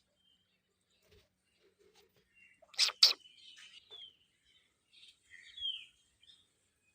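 Ringneck parrot chirping: two loud, sharp calls about three seconds in, between softer scattered chirps and a few short notes that slide downward.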